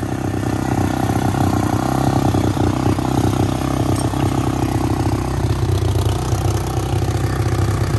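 Honda Rancher 350 ES ATV's single-cylinder four-stroke engine idling steadily just after starting on a newly fitted carburetor, its idle running a little high.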